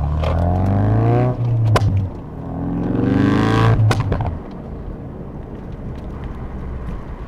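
Ford Focus RS's 2.3-litre turbocharged four-cylinder, on its stock exhaust, pulling hard through two gears, its note rising each time, with sharp exhaust pops at the gear change and again as the throttle is lifted about four seconds in. It then settles to a steady, quieter cruise.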